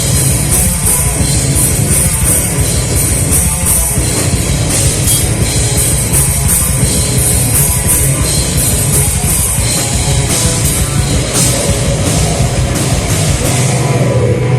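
A live band playing loud heavy rock music, driven by a drum kit; these are the closing seconds of the song.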